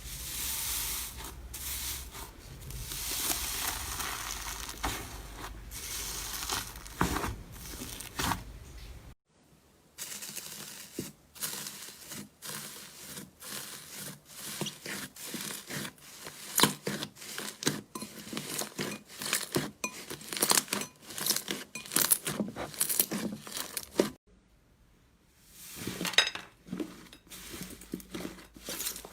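Slime being squished and stretched by hand, making many small crackling pops and clicks. It comes in three stretches, with short breaks about nine seconds in and near the end.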